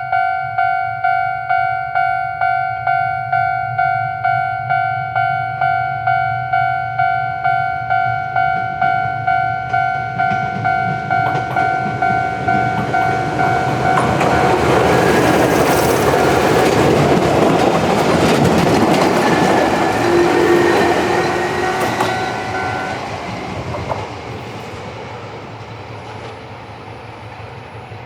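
Japanese level-crossing electronic warning bell ringing about twice a second, then a Chichibu Railway electric train passes through the crossing. The train's run and wheel clatter build to the loudest part about halfway through and drown the bell. The bell stops about four-fifths of the way in, and the train fades away.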